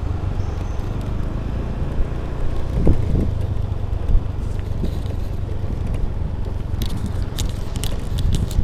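Small motorbike engine running steadily as it rides along a bumpy dirt and gravel track. Sharp clicks and rattles come in over the last second or two.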